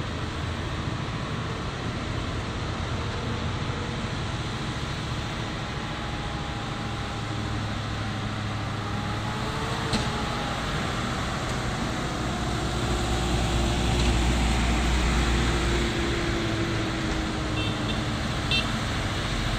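Diesel engine of a heavy Mitsubishi Fuso container truck pulling up a hill grade, a steady low rumble with slowly shifting pitch that grows louder as it nears, then drops off a few seconds before the end. Other traffic passes, with a sharp click about halfway through.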